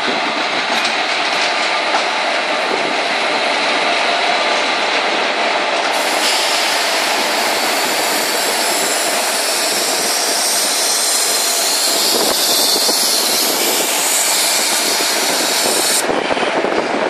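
Several electric locomotives coupled together rolling past close by: a loud, steady rumble and rattle of wheels and running gear on the rails.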